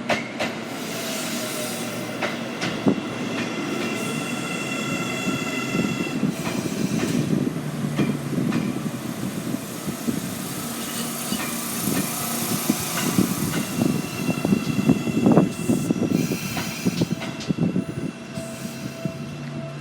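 Seibu 9000-series electric train pulling into a station platform: wheels running and clacking over the rails, with steady high squealing tones from wheels and brakes as it slows.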